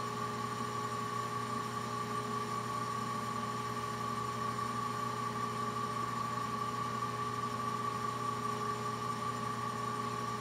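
Soft-bearing vertical balancing machine running its verification cycle with the rotor spinning: a steady electric hum with a higher whine over it, even in level.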